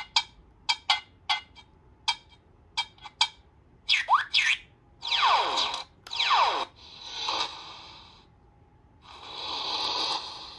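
Electronic replica of the Quantum Leap Gummi Bear handlink (Season 4 version) playing its sound effects as its buttons are pressed. About a dozen quick short beeps come first, then electronic chirps sweeping up and down in pitch, then two swelling hissy whooshes near the end.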